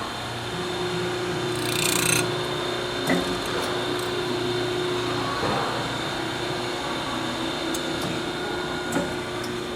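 Straight knife-grinding machine running with a steady hum, a short hiss of the grinding stone on metal about two seconds in, and a couple of light clicks.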